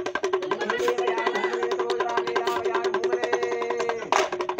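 Dugdugi (small two-headed hand drum) rattled fast and evenly by twisting it, a continuous drumroll with a steady ringing drum tone under the strikes.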